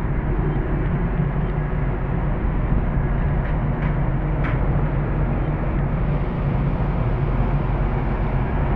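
Steady low rumble of a ro-ro passenger ferry's engines under way, heard from the open deck.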